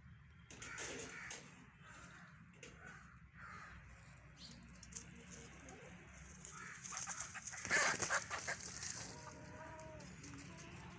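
Chickens clucking and giving short calls, with a louder noisy burst about eight seconds in.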